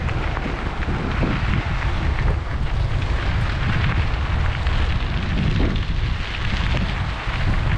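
Wind buffeting the microphone of a camera on a moving bicycle, a steady heavy rumble, over the rush of tyres on a gravel trail.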